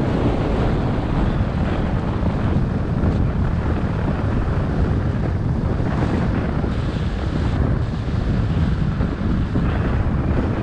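Wind buffeting a GoPro Hero 7 Black's microphone in a steady low rumble as the snowboarder rides downhill, with the board hissing and scraping over packed snow in louder patches every few seconds.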